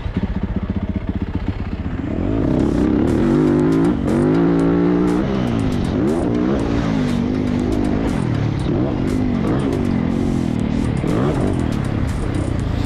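Yamaha motocross bike's engine pulling away and then revving up and down through the gears, its pitch rising and falling repeatedly, heard from a camera mounted on the bike.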